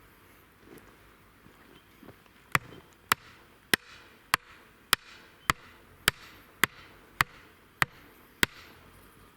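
A hammer driving a marker stake into the ground, eleven steady blows about one every 0.6 seconds, starting a couple of seconds in.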